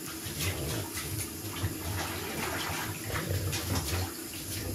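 Water splashing and sloshing in a bathtub as a wet French bulldog is scrubbed by hand, with many small irregular splashes.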